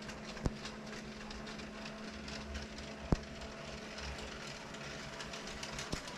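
Electric curtain track motor humming steadily as the curtains draw open, with a few sharp clicks along the way.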